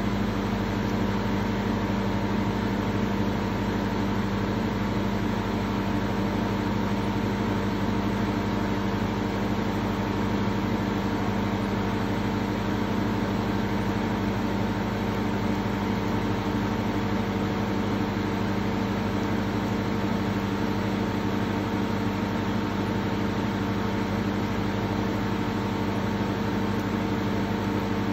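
Steady mechanical hum of a running machine, several even tones over a constant hiss that never changes in level.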